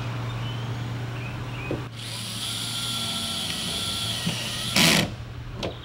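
Cordless drill/driver whining steadily as it drives a self-drilling tek screw into steel fascia trim. The whine starts about two seconds in and ends in a short, loud burst near the end.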